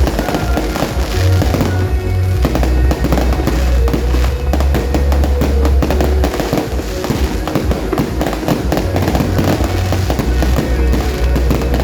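Fireworks going off in rapid succession, a continuous run of bangs and crackles, with loud music playing along with them.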